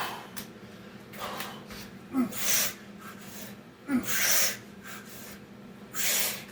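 A man breathing hard while doing Navy SEAL burpees: three loud, forceful exhalations about two seconds apart, the first two starting with a short grunt.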